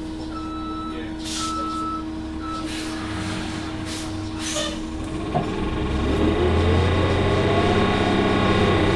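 Orion VII NG CNG transit bus: a high beeping tone sounding three times and several short hisses of air, then about five seconds in a thump and the Cummins ISL-G natural-gas engine with its Allison transmission pulling away, getting louder and rising in pitch.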